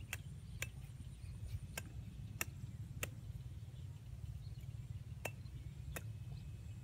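A steady low rumble with about seven sharp clicks at uneven intervals, and faint thin high sounds behind them.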